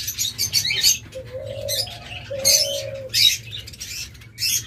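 Many small cage birds chirping and twittering, with a dove cooing twice in low, held notes in the middle.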